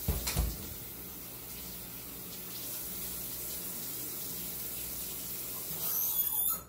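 Kitchen tap running steadily as blackberries are rinsed under it, with a couple of low knocks at the start; the water shuts off at the very end.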